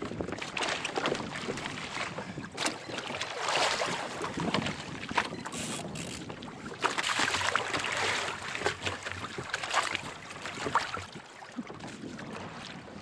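Choppy sea water washing and slapping against a sailing trimaran kayak's hull, in uneven surges with scattered splashes, with wind on the microphone.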